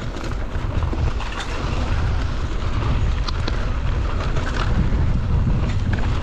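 Wind buffeting the microphone over the rolling crunch and rattle of a mountain bike riding a rough trail, with scattered clicks and knocks. It grows louder over the first couple of seconds.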